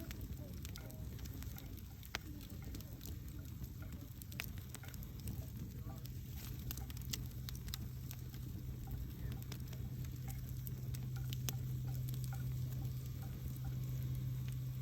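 Wood campfire crackling, with scattered sharp pops and snaps over a low rumble and a steady low hum that grows stronger about five seconds in.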